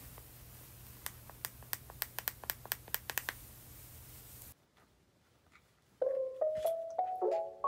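A quick run of about a dozen sharp little clicks over two seconds, then light background music of mallet-like notes coming in about six seconds in.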